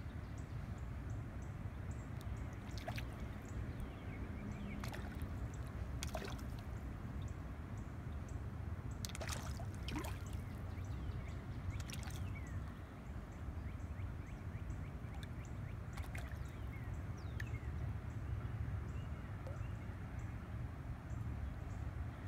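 Small water sounds at a still surface: scattered drips and light plops at irregular intervals over a steady low rumble.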